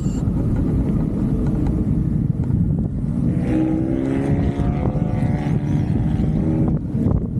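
Steady low rumble of a vehicle in motion, mixed with wind on the microphone. From about three and a half seconds in, a pitched engine drone rises slightly and lasts about three seconds, with a few knocks near the end.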